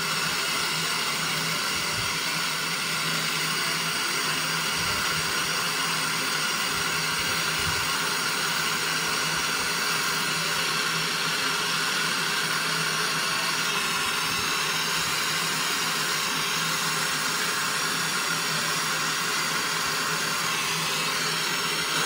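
Gas brazing torch flame hissing steadily as it heats the copper capillary tube joint for silver brazing.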